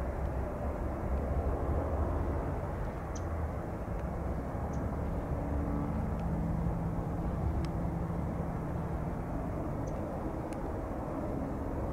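Airbus A330neo airliner on final approach, its Rolls-Royce Trent 7000 engines a steady distant low rumble.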